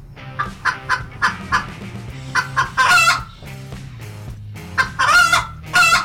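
Chicken clucking: runs of short clucks, each run building into a longer, louder drawn-out call, heard twice.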